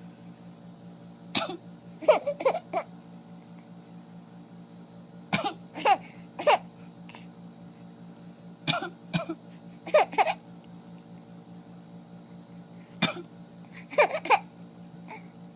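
Short coughs alternating with a small child's giggles, in brief bouts every few seconds, over a steady low hum.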